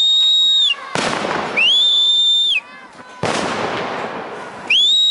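Explosions during a street riot: two sudden bangs, each trailing off into a lingering roar of noise. Between and around them sounds a high, steady whistle-like tone that rises, holds for about a second and falls, three times.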